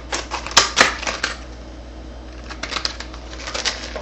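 Irregular clicks and crackles of lock packaging and hardware being handled, in two clusters with a pause in between, as the door lock cylinder is worked out of its package.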